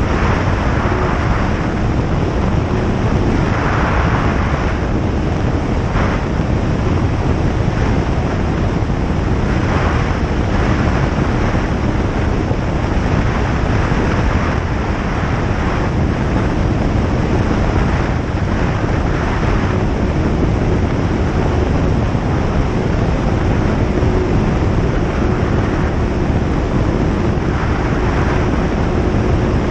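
Single-engine light aircraft's piston engine running steadily, a loud, even drone mixed with rushing wind noise, with a faint steady hum underneath.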